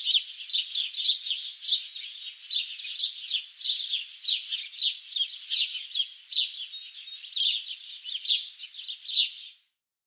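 Warbler nestlings begging at the nest: a rapid, unbroken run of short, high-pitched, downward-slurred chirps, several a second, which stops abruptly just before the end.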